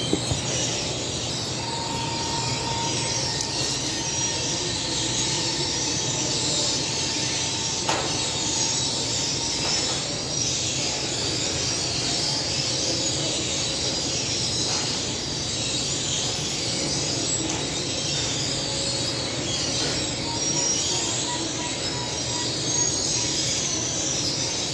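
Steady running noise of a commercial flatbread conveyor oven and its extractor hood, with a faint whine that comes and goes.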